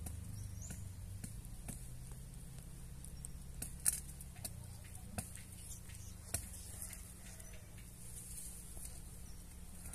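Low, steady hum of a clustered bee swarm, with scattered sharp little clicks over it, the loudest about four seconds in.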